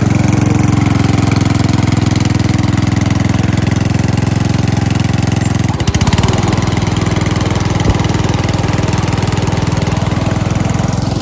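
Small engine of a rear-engine ride-on lawn mower running steadily as the mower is driven along. Its sound shifts abruptly about six seconds in, then runs steadily again.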